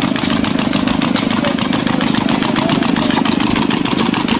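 Stuart Turner Sandhurst model gas engine running steadily, with a rapid, even beat over a steady low hum.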